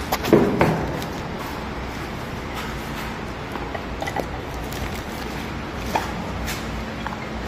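Handling noise from a surgical light dome and its arm being fitted: a couple of knocks in the first second, then scattered light clicks and knocks with rustling of the plastic wrapping, over a steady low hum.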